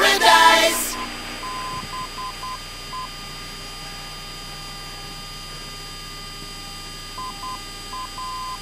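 F-16 cockpit audio: a steady electronic whine made of several even high tones, with short beeps in small clusters, a few in the first three seconds and again near the end.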